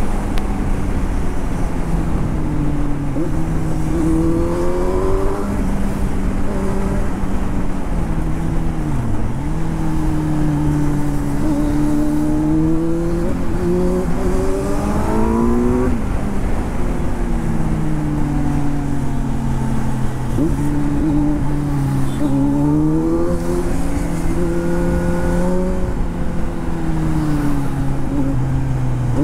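Kawasaki Z900's inline-four engine heard from the rider's seat at speed, its note rising under throttle and dropping back several times as the rider shifts and rolls off, over a steady rush of wind noise.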